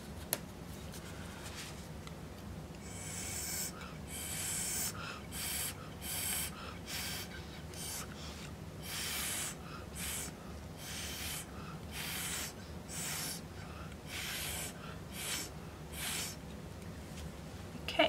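Paintbrush stroked and dabbed across wet acrylic on a stretched canvas: a run of short brushing strokes, irregular, about one or two a second, starting a few seconds in and stopping near the end.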